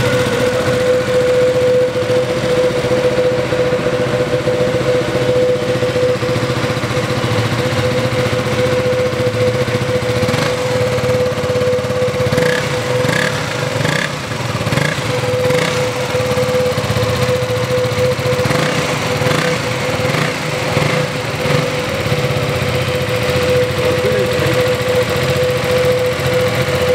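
KTM Duke 200's single-cylinder four-stroke engine idling steadily, its exhaust note heard close up.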